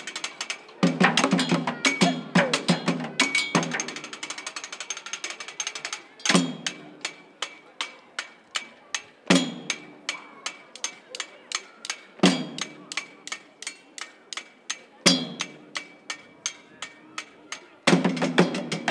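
Street percussion group playing drumsticks on drums and found objects: plastic water barrels, a metal bin and a stepladder. Quick, even stick taps run throughout, with a heavier accented hit about every three seconds, and the fuller group comes back in near the end.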